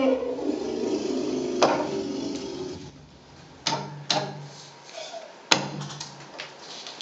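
A hand stamp knocked down onto sheets of paper on a tabletop: four sharp knocks spread over several seconds, with lighter taps between. A pitched, wavering, howl-like sound fades out in the first two seconds or so.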